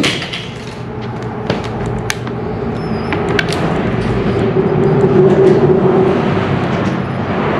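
Rumble of traffic crossing the road bridge overhead, swelling to its loudest about five to six seconds in, over a steady low hum. A few light clicks come in the first few seconds.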